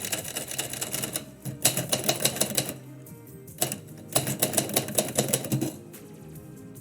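Typewriter keys struck in quick runs: three bursts of rapid typing separated by short pauses, over background music.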